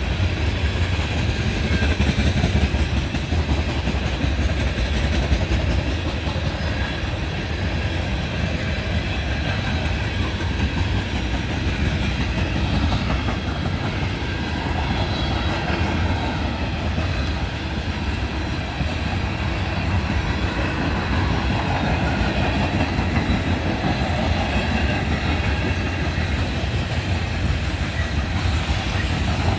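Freight train of coal hopper cars rolling steadily past at close range, the wheels running on the rails.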